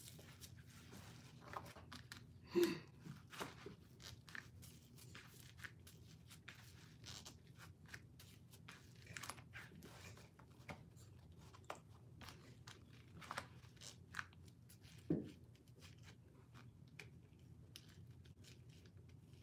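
Faint clicking and rustling of a tight waist trainer being pulled together and fastened at its front closure by hand, with two brief louder sounds about two and a half and fifteen seconds in.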